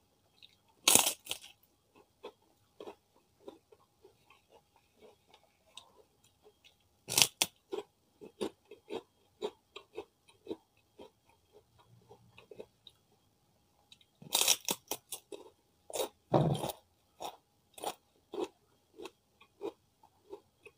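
Crunchy bites into a kerupuk cracker, eaten close to the microphone: a loud crunch about a second in, another around seven seconds, and a cluster of crunches around fourteen to seventeen seconds, with softer crackly chewing in between.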